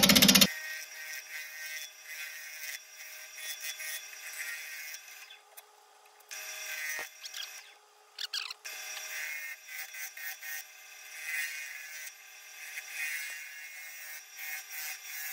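Bowl gouge cutting a spinning log blank, thought to be black locust, on a wood lathe: uneven scraping of the tool against the wood that comes and goes, with two short quiet gaps.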